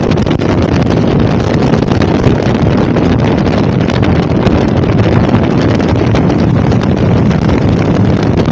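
Steady, loud wind buffeting on the microphone of a motorcycle being ridden along at road speed, with the bike's running and road noise blended into it.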